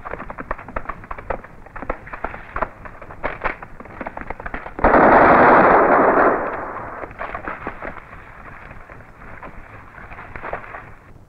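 Battle gunfire: rapid rifle and machine-gun shots crackling throughout. About five seconds in, a big explosion is the loudest sound and dies away over the next couple of seconds, after which scattered shots go on. The sound is dull and muffled, as on an old film soundtrack.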